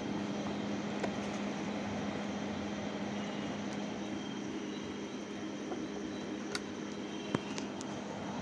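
Steady electrical hum and hiss from a switched-on 1200-watt power amplifier setup, with a few clicks as cables and plugs are handled.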